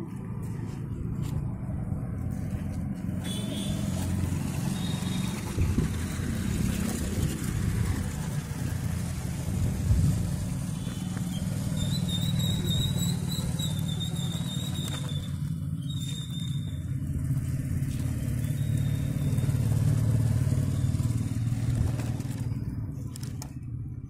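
A steady low rumble, with a faint high whine that comes and goes from a toy remote-control rock crawler's small electric motors and gears as it drives over dirt.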